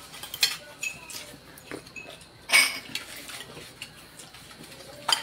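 Scattered light clinks and knocks of plates and cutlery on a dinner table, with one louder, brief noise about two and a half seconds in.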